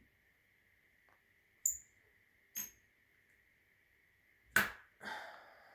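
Two sharp clicks, then a louder knock about four and a half seconds in followed by a brief rustle, from switches and wiring being handled while an electric-motor controller is powered on, over a faint steady high whine.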